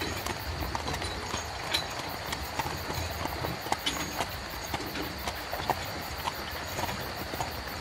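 Horse-drawn carriage on the move: hooves clip-clopping in an uneven patter of sharp knocks over a steady low rumble.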